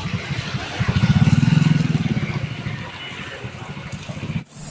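A motorcycle engine passing close by, its low pulsing run swelling about a second in and fading away, over steady street noise.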